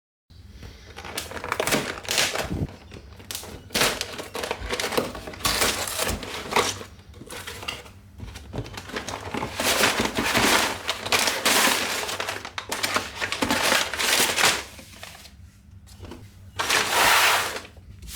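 Plastic LEGO parts bags crinkling and loose plastic pieces rattling as they are handled, with irregular sharp clicks throughout and longer rustling stretches, the loudest near the end.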